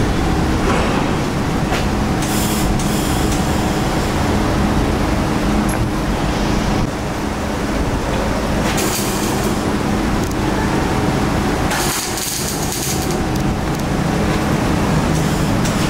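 MIG wire-feed welder in use: a steady hum and workshop noise, with several short bursts of arc crackle and hiss, each lasting about a second, as the welder strikes the arc on a steel joint.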